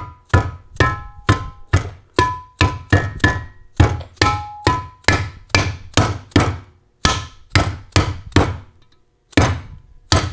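Rubber mallet tapping a billet mid plate down into a Muncie 4-speed transmission case, about three quick strikes a second with a short metallic ring on many of them and a brief pause near the end, seating the tight-fitting plate.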